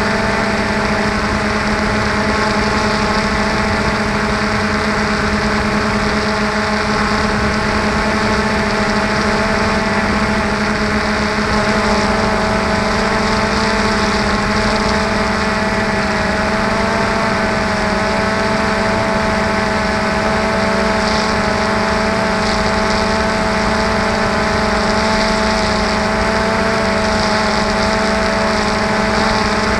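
Hovering multirotor drone's electric motors and propellers: a steady whine with several held pitches that waver slightly, heard up close from the drone's own camera.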